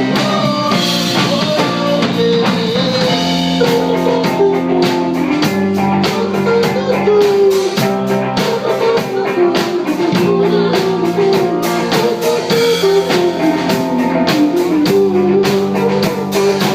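Live band playing an instrumental passage: guitar carrying a melody over a steady drum-kit beat.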